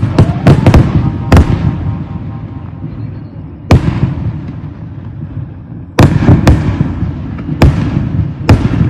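Fireworks going off: a quick cluster of loud bangs right at the start, single bangs at about one and a half and almost four seconds in, then a dense run of bangs from about six seconds in, with a continuous low rumble throughout.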